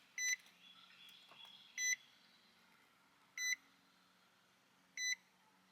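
Car's dashboard warning chime beeping four times, evenly about a second and a half apart, each one short and the same pitch, in the 2006 Nissan Altima.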